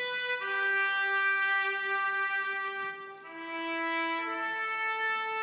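Background music: a brass melody of a few long held notes, each changing pitch after a second or more.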